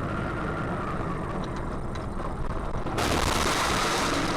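Steady engine and road noise inside a moving vehicle, with a few faint clicks; about three seconds in, a louder rushing hiss of wind and road noise starts abruptly.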